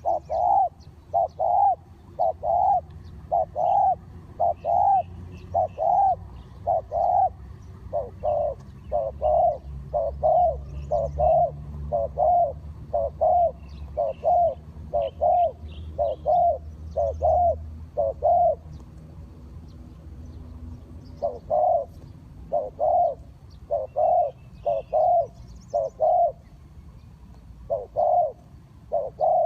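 Spotted dove cooing: a long run of short, low coos, often in pairs, about two a second, broken by a pause of a couple of seconds about two-thirds of the way through. Faint chirps of small birds sound behind it.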